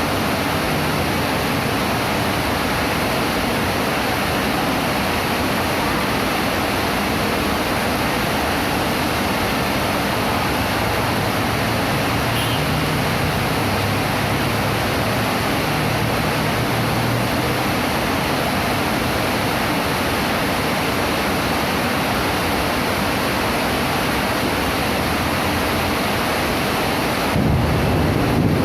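Heavy rain pouring down as a loud, steady, even hiss. Near the end it turns deeper and slightly louder.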